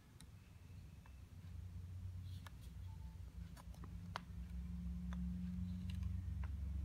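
Folded paper edge scraping and pressing through talcum powder on a hard surface: faint, scattered ticks and clicks. Under them runs a low steady hum that grows louder about two seconds in.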